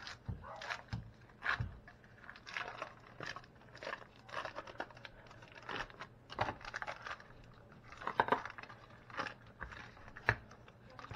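Foil wrapper of a block of cream cheese crinkling as it is peeled open by hand, in irregular short crackles.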